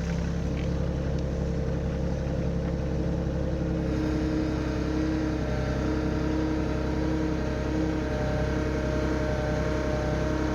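Kioti subcompact tractor's diesel engine running steadily at idle, with a few higher steady tones joining about four seconds in.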